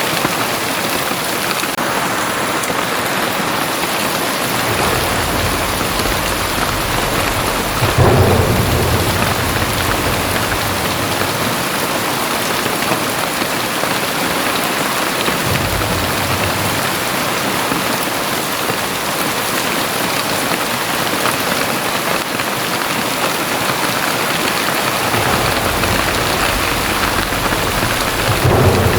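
Very heavy rain falling steadily, with low rumbles of thunder; the loudest comes about eight seconds in and another builds near the end.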